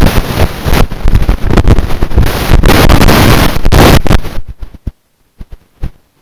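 Wind buffeting the camera microphone, loud and rushing, that cuts off about four seconds in, leaving near silence broken by a few faint clicks.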